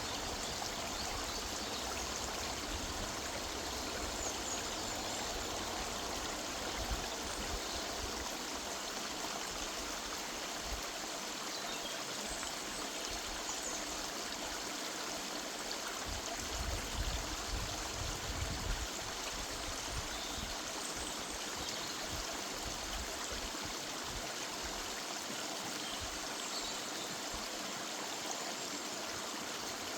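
Woodland river running steadily over its bed, an even rushing of water, with a few faint high bird chirps now and then.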